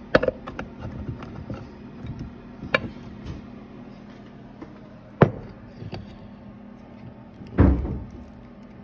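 Several sharp knocks and clatters, the loudest a heavier thud with a short rumble a little before the end, from things being moved about nearby; a low steady hum runs underneath.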